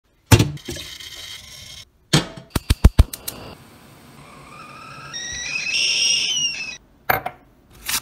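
A metal clank, then a quick run of sharp clicks, then a stainless steel stovetop kettle whistling: the whistle starts low, climbs in pitch and loudness in steps, and cuts off suddenly. Another knock follows just after.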